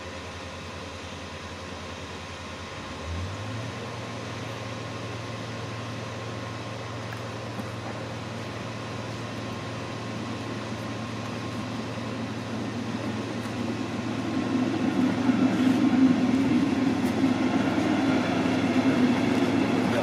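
A train approaching on the railway line, its rumble growing steadily louder through the second half. Underneath is a steady low hum that steps up in pitch about three seconds in.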